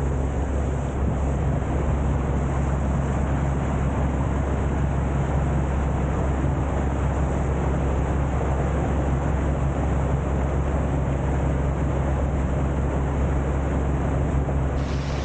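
Wooden tour boat under way: a steady engine hum with wind and water rushing along the hull.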